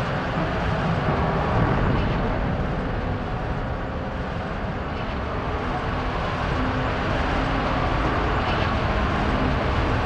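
Dramatized sound of a steamship's hull breaking apart: a loud, continuous deep rumble with a few faint cracks along the way, meant to recreate the brittle fracture of the Titanic's steel.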